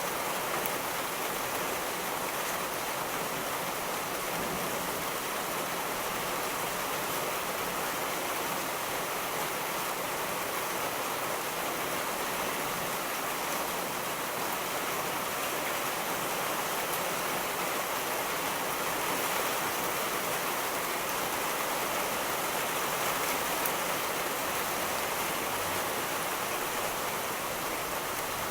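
Steady heavy rainfall, an even hiss of rain with no let-up.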